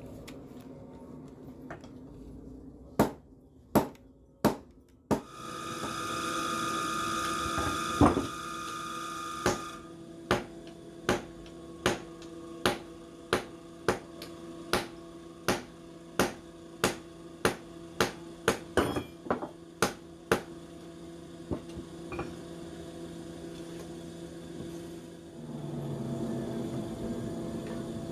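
Hammer blows striking steel blade stock on an anvil, a long run of evenly spaced ringing strikes about three every two seconds, over a steady machine hum. Before the strikes, three single knocks and then a few seconds of a louder machine whine that stops suddenly.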